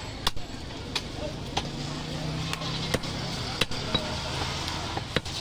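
Heavy butcher's cleaver chopping goat meat on a wooden chopping block: a series of sharp chops, roughly one or two a second and unevenly spaced.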